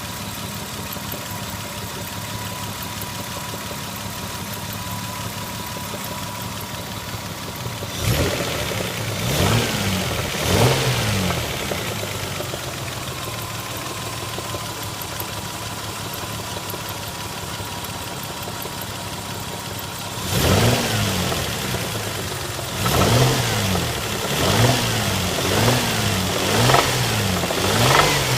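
Lexus ES 300's V6 engine idling, then revved in short throttle blips: a few about eight seconds in, and a quick run of repeated blips over the last third. It is being run to show a knocking sound the owner hears from it.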